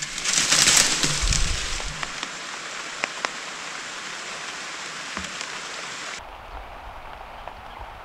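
Rain pattering on leaves: a steady hiss with scattered small drop ticks, loudest in the first second. The upper hiss drops away abruptly about six seconds in.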